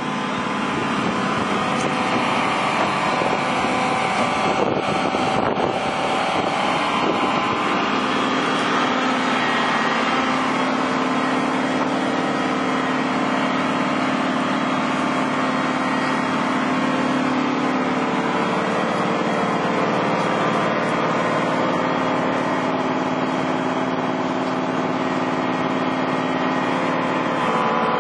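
Engine running steadily at a constant speed, a continuous drone with several steady pitched tones.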